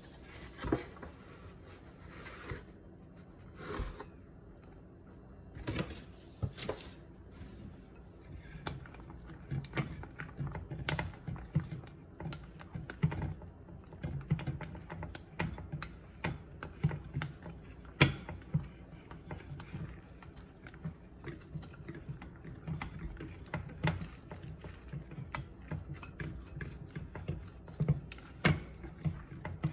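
Kitchen utensils clicking and knocking against bowls, pans or a board in an irregular clatter, sparse at first and busier from about a third of the way in.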